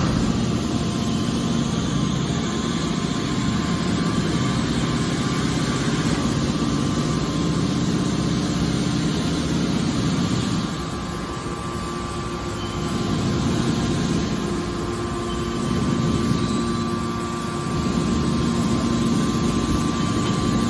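Heavy machinery running with a steady mechanical hum and a few held tones, easing off briefly about halfway through.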